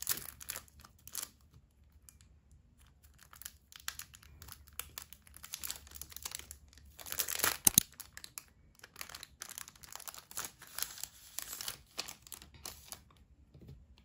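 Thin clear plastic sleeve crinkling and crackling in irregular bursts as it is peeled open and an iPod Touch is slid out of it, loudest just past the middle.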